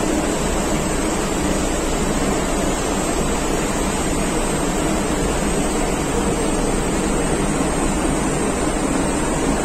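Steady, even rushing background noise of a workshop, with no distinct tool strikes or clinks.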